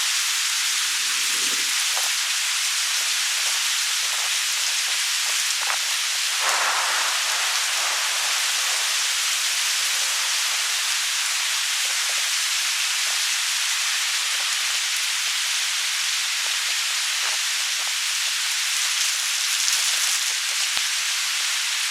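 Steady rain falling, a dense even hiss with many small ticks of individual drops.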